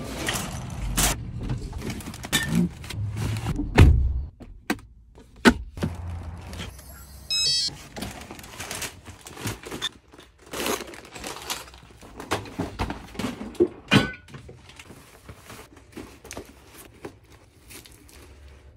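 Groceries and fabric reusable shopping bags being handled and packed: irregular thunks and knocks as items and bags are set down, with cloth rustling between them. The loudest knocks come about four seconds in and again near fourteen seconds.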